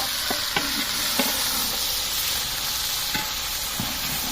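Chopped vegetables frying in hot oil in a large pot, a steady sizzle, with a few short scrapes and knocks of a ladle as they are stirred.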